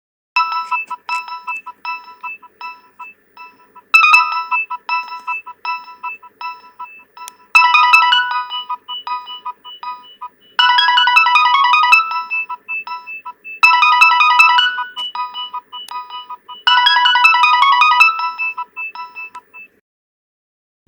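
Nokia 6030 mobile phone playing one of its built-in ringtones: a synthesized melody of short repeated notes, with fuller, busier phrases coming in about every three seconds. It stops about a second before the end.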